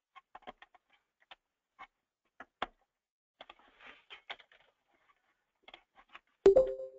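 Sparse light clicks and ticks of a computer mouse and keyboard being used at a desk, then one louder thump with a brief low ring near the end.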